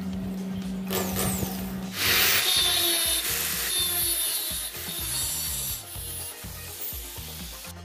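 Angle grinder's cutting disc grinding a steel rod spun in an electric drill's chuck, starting about two seconds in, loudest for the next few seconds and then lighter.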